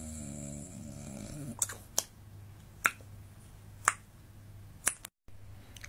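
A man's low, steady droning snore, faked while lying with his eyes closed, for about the first second and a half. It is followed by five short sharp clicks, roughly one a second.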